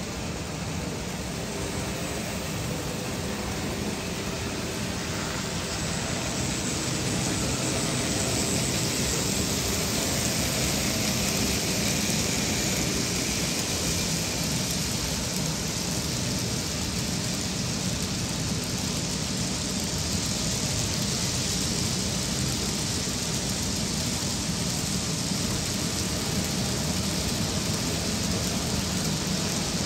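An N scale model freight train running past at steady speed: a continuous rolling noise from the wheels on the track, unchanging for the whole pass.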